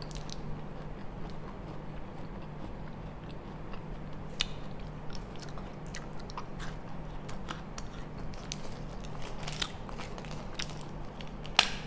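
A person chewing and biting a Ruby Cocoa KitKat chocolate wafer bar, with scattered small crunches and clicks and a few sharper ones, over a low steady hum.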